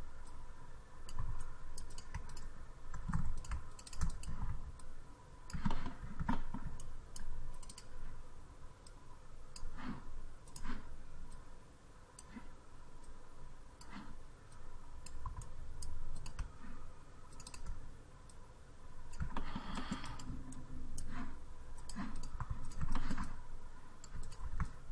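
Irregular clicks of a computer mouse and keyboard keys, a few at a time with short gaps and a busier run of clicks near the end, over a faint steady tone.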